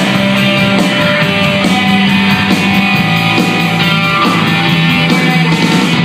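Rock band playing live: electric guitars and a drum kit, loud and continuous.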